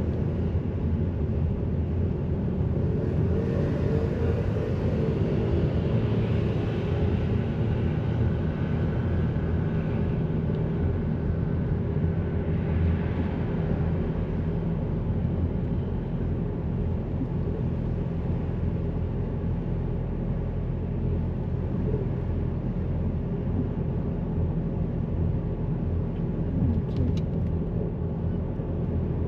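Steady low rumble of a road vehicle on the move, engine and tyre noise with a constant low hum.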